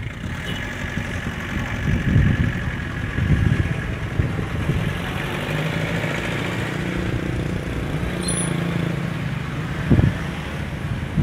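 Road traffic: motorcycles riding past, their small engines running, over an uneven low rumble.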